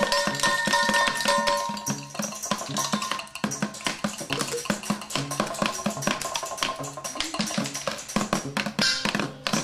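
Percussive music: quick tapping strikes over a repeating figure of low pitched notes, with a few steady ringing tones that stop about two seconds in.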